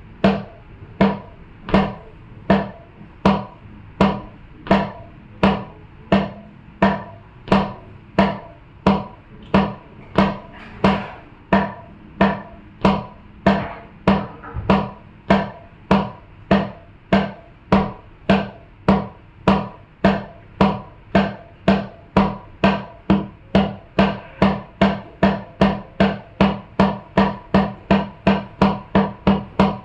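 Single percussive strikes with a short pitched ring, in a steady even pulse. They start at about one and a half a second and gradually speed up to a little over two a second.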